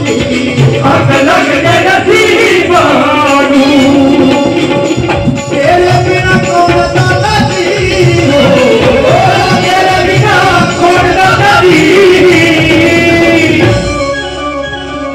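Live Punjabi devotional song: men singing into microphones over harmonium and hand-drum beat, loud through a PA system. About 14 seconds in, the drums drop out and the music thins.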